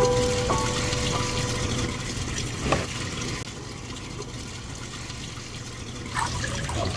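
Water running and splashing steadily in a live seafood tank, with a single knock about three seconds in.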